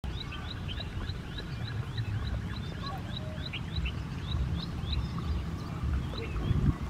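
Small birds chirping in short rising notes, about three a second, thinning out after about four seconds, over a steady low rumble. There is a brief louder low sound near the end.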